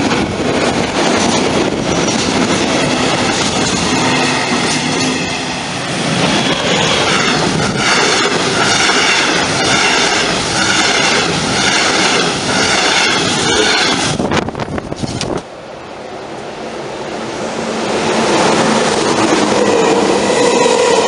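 Trains passing at speed: a freight train running by, then a red double-deck regional train with a regular rhythm about once a second. After a sudden cut, an ICE high-speed train comes through a station and grows louder toward the end.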